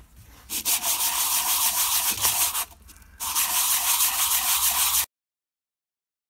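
Motorcycle brake pad rubbed back and forth on sandpaper, a scratchy hiss in two spells of about two seconds with a short pause between, cut off abruptly about five seconds in. The pad is being sanded to cure brake squeal.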